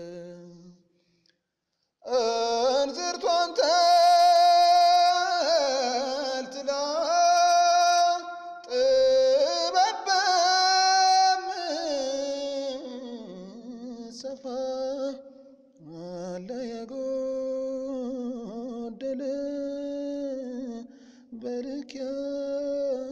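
A song: a solo singing voice holds long, wavering notes in phrase after phrase, after a short pause about a second in.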